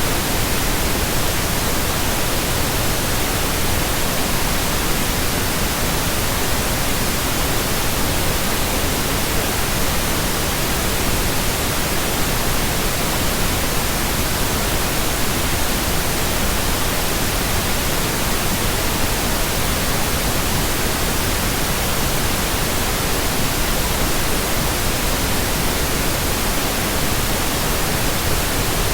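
Steady synthetic pink noise: an even, unchanging hiss spread across the whole range, with no tones or events in it.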